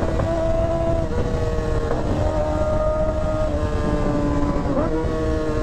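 A vehicle engine running hard at speed, a steady note that dips briefly in pitch and recovers a few times, over a heavy low rumble.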